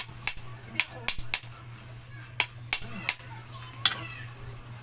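Irregular sharp metallic clinks and taps, about eight of them, as metal parts or tools are handled on a Juki sewing machine under repair, over a steady low hum.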